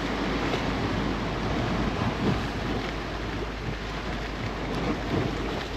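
Wind gusting across the microphone with heavy rain falling: a steady rushing noise that swells and drops with the gusts.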